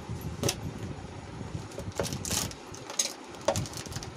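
Gas stove burner running with a low steady rumble under a pan of gravy heating toward the boil, with a few sharp pops and ticks scattered through it.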